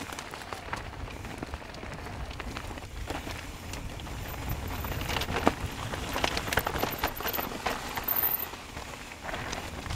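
Mountain bike rolling down a rough, hand-cut dirt trail: tyres crunching over dirt and rock with a patter of clicks and rattles, thickest and loudest about halfway through, over a steady low rumble.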